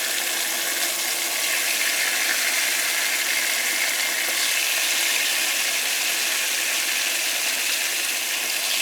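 Whole ripe bananas, skins on, frying in hot oil with a steady sizzle.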